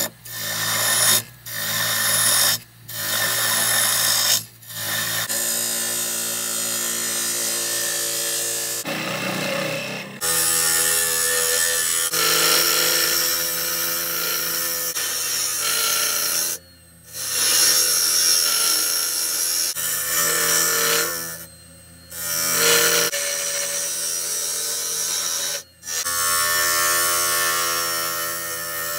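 Wood lathe spinning a small piece of wood while a hand-held turning tool cuts it: a rough, steady hiss of the cut over the lathe motor's hum. The cutting breaks off briefly several times as the tool is lifted from the wood.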